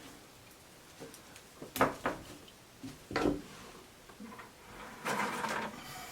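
Dogwood stems being bent and wrapped into a wreath by hand: twigs rustling and brushing, with two sharp cracks of wood about two and three seconds in and a short rustle near the end.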